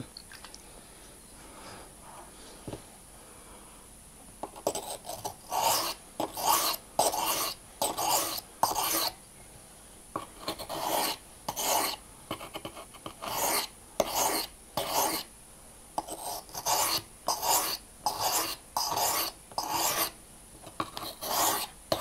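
Steel pocket-knife blade being stroked across the fine 240-grit side of a wet sharpening stone, giving a rasping scrape with each stroke. The strokes repeat about once or twice a second from about four seconds in, sharpening a very blunt blade.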